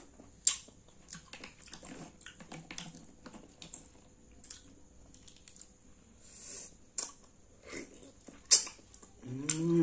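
Close-up eating sounds of green mussels being sucked from their shells by hand: wet smacks, slurps and sharp clicks, the loudest about half a second in and again near the end. A short hummed voice sound that rises and falls in pitch comes near the end.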